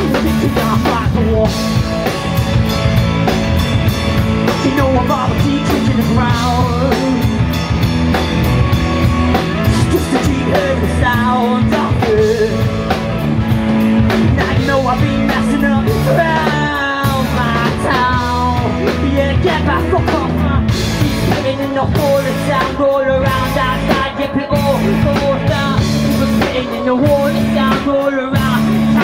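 Live rock band playing loudly: a lead vocal sung into a microphone over electric bass, guitar and drum kit.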